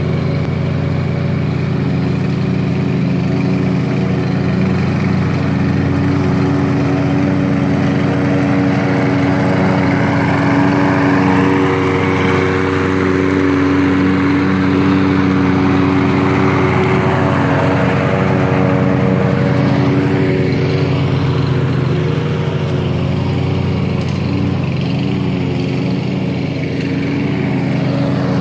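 Toro 22-inch AWD Recycler walk-behind lawn mower running steadily as it mows grass, its engine pitch shifting slightly in the middle.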